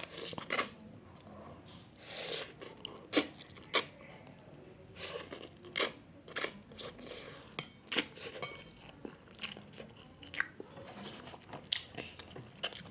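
A person chewing a mouthful of Indomie instant noodles close to the microphone: irregular mouth smacks and sharp clicks, a few seconds apart, with softer chewing between.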